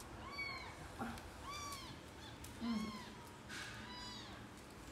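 Newborn kittens mewing in a basket: about four short, high mews, each rising then falling in pitch, roughly one every second and a quarter.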